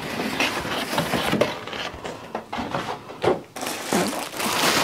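Clear plastic bubble wrap rustling and crinkling as a wrapped item is lifted out of a box and handled, loudest near the end.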